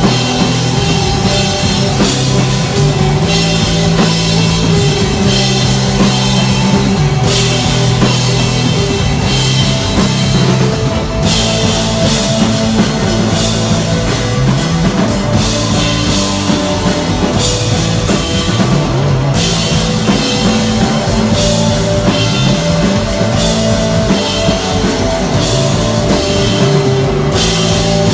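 Live rock band playing loud instrumental desert rock: electric guitar, a bass holding long low notes that change every second or two, and a drum kit with steady cymbal wash.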